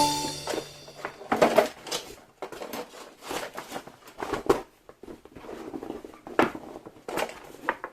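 Handling noises in a small room: scattered light knocks, clicks and rustles, irregular and brief, as of gear and packaging being moved about.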